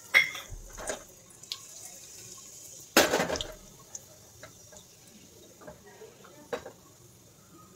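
Whole spices (cumin, cardamom, black pepper, bay leaf, cinnamon) sizzling and crackling in hot mustard oil in a pressure cooker, a faint steady hiss with small ticks. Sharp knocks come right at the start, louder about three seconds in, and once more near the end.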